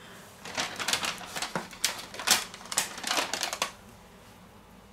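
Irregular run of light knocks and taps as avocados and vegetables are set down and shifted on a wooden cutting board. The taps stop a little after three and a half seconds.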